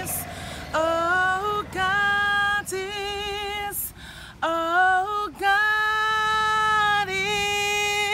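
A woman singing a gospel song unaccompanied, holding several long, high notes and sliding up into some of them, with short breaths between phrases.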